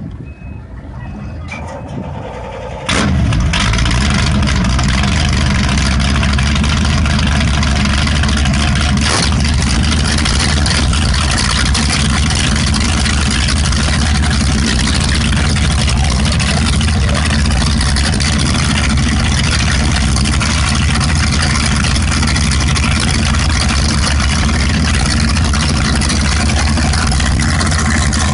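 Twin engines of a 38-foot Cigarette Top Gun offshore powerboat starting up. After about three seconds of a quieter low rumble they catch with a sudden jump in level, then idle loudly and steadily through the through-transom exhausts.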